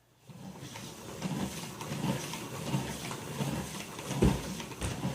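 A salad spinner being hand-spun with wet laundry inside to wring the water out, a rhythmic plastic whirring that swells about three times every two seconds. A louder thump comes about four seconds in.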